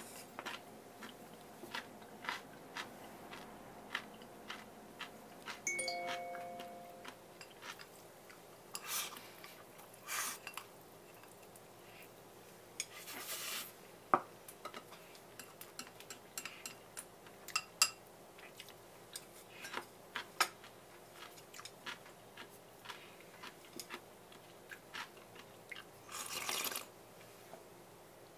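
A person eating from ceramic bowls with chopsticks: scattered light clicks and taps of chopsticks against the bowls, chewing, and a few longer rustling, scraping bursts as rice is pushed from the lifted bowl. A brief ringing tone sounds about six seconds in.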